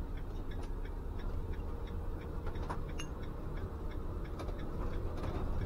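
Motorhome engine running at manoeuvring speed, heard from inside the cab as a steady low rumble, with light irregular ticks and rattles from the cab.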